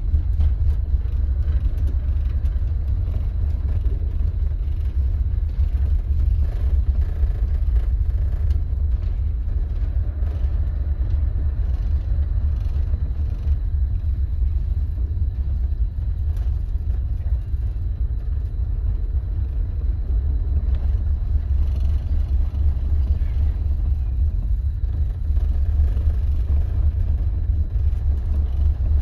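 Storm wind buffeting the microphone as a heavy, unsteady rumble, over the fainter rushing of a ferry's churning wake and rough sea.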